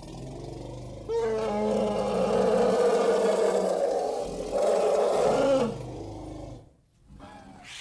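An elephant calling: one long, loud, pitched call that starts about a second in and stops before six seconds, with a lower rumble beneath it, then fades into quieter sound.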